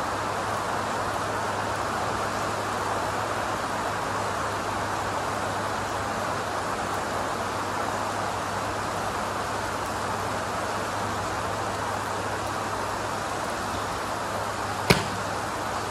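Steady rain hissing under a low hum, then, near the end, the single sharp crack of a Mizuno MP-33 forged blade iron striking a golf ball off a range mat.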